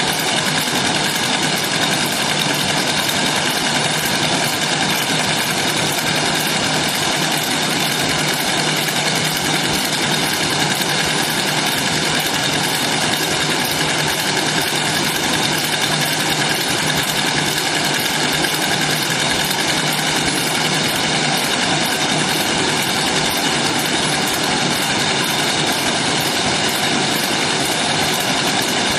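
Pillow packaging machinery running, a steady, dense mechanical hum with a whine on top, unchanging throughout.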